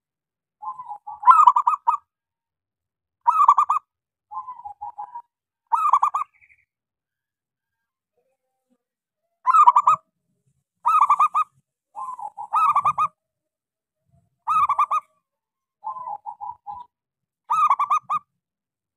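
A small-voiced local zebra dove (perkutut) singing in repeated cooing phrases. Some phrases are a soft rapid stutter of notes and others a louder ringing coo, with a pause of about three seconds midway.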